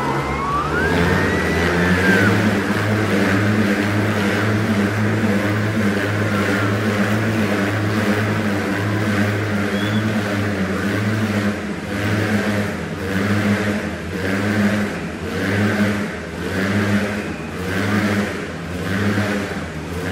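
Motorcycle engines running and revving inside a steel-mesh globe of death. From about halfway through, the sound swells and fades in a steady rhythm about once a second.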